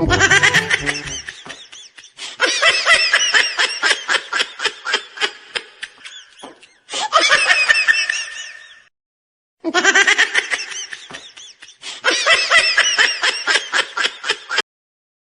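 Laughter, in four bursts of a few seconds each that start and stop abruptly with short silent gaps between them, like an edited-in laughing sound effect.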